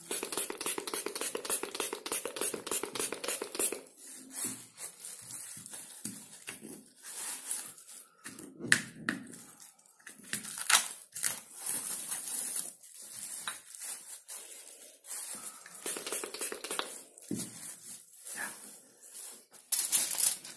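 Gloved hands working inside a plastic-film glovebox: irregular rustling and crinkling of the plastic sheeting and gloves, with scattered clicks and knocks of plastic culture jars and their lids being handled. A louder crinkle near the end.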